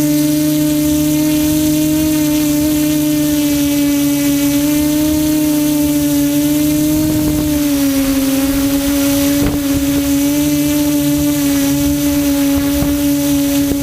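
QAV400 quadcopter's electric motors and propellers running in flight, a steady hum with a hiss of air over it. The pitch drops slightly about eight seconds in, and there is a brief knock shortly after.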